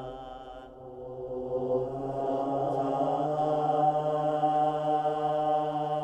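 Droning soundtrack music: a long-held low note with a stack of overtones. It dips slightly about a second in, then swells back up.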